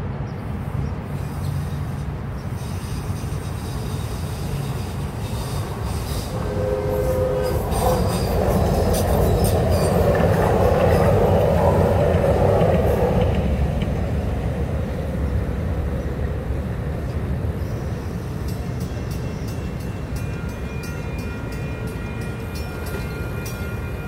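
A train sounds a short horn about six seconds in, then runs by with a rumble that is loudest in the middle. Near the end a mechanical grade-crossing bell starts ringing steadily as the crossing activates again.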